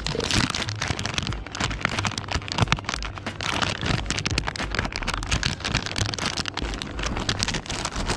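Crinkling and crackling of a plastic soft-bait package being handled and opened, dense irregular crackles throughout.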